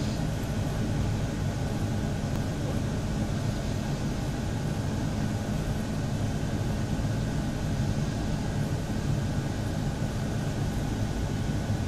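Steady low hum and rumble with a faint thin whine above it, unchanging throughout: mechanical background noise in the room.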